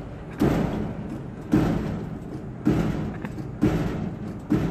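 Gas pump nozzle squeezed again and again to top off a full tank: each time fuel gushes briefly into the filler neck and the nozzle's automatic shutoff clunks it off, five times, about once a second.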